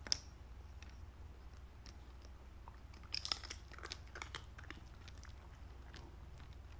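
Corgi crunching and chewing crispy fried sweet potato chips: one sharp crunch right at the start, then a flurry of crunches about three seconds in.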